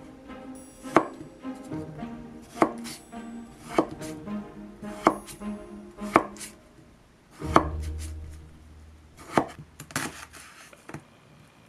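Kitchen knife cutting potatoes into chunks on a wooden cutting board: about seven sharp knocks of the blade through the potato onto the board, roughly one every second or so.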